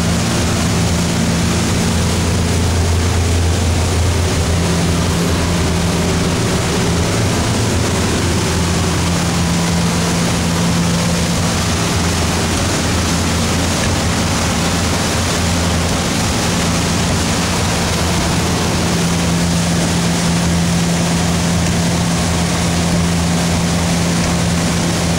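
A fishing boat's engine running steadily, a constant low hum, over a steady rush of wind and water.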